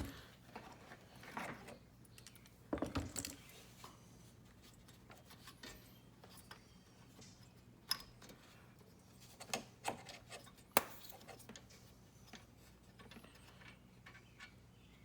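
Stubby ratchet turning a 24 mm socket on a car's A/C pressure switch: intermittent ratchet clicking with scattered clinks and knocks of the tool, a denser cluster about three seconds in and a few sharp ticks later.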